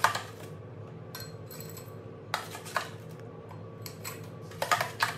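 A metal spoon scraping and clinking against a blender jar as it scoops crushed ice out into a wine glass. The sound comes in short separate clinks and scrapes, with a quick run of them near the end, over a faint steady hum.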